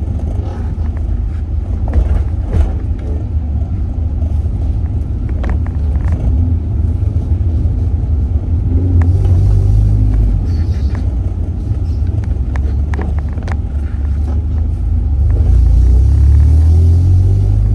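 Car on the move: a steady low rumble of engine and road noise with scattered light clicks, swelling with a louder rush of noise about nine seconds in and again near the end.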